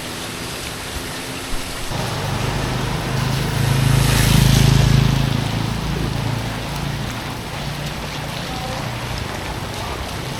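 Steady rushing water noise, with a low engine hum that comes in about two seconds in, swells to its loudest near the middle and then eases back.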